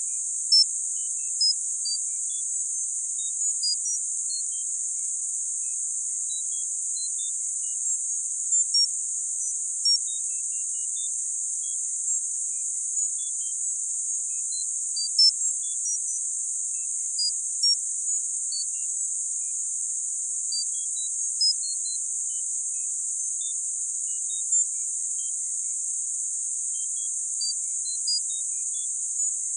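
Synthetic tinnitus sound-therapy audio: a steady high-pitched hiss, with short, high pips at random pitches popping in irregularly over it.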